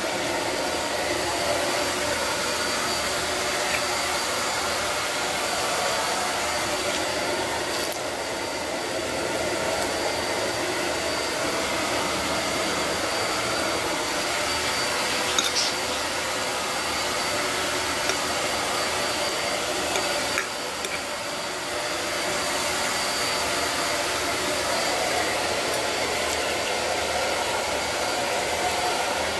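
Electric fan heater running with a steady blowing whir. A couple of light clicks come about halfway through.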